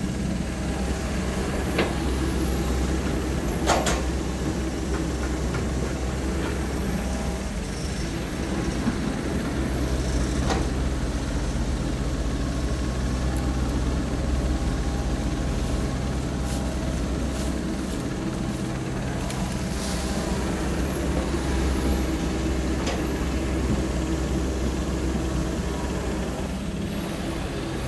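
Komatsu PC195LC excavator's diesel engine running steadily under working load as it digs and loads soil, with a few sharp knocks and clanks scattered through.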